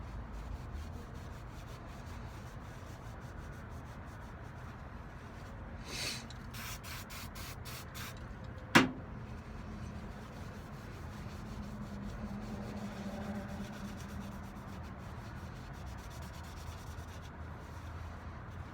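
Hand rubbing on the metal parts of a mortise lock being cleaned, steady and fairly quiet. About six seconds in comes a quick run of short hissy bursts, and just before nine seconds a single sharp click, the loudest sound.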